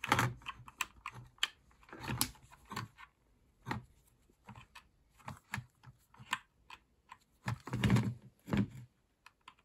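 Irregular small plastic clicks and taps as hands and a screwdriver work the cables and plug a connector back into the circuit board of a blade hand dryer's open plastic casing, with a couple of heavier knocks about eight seconds in.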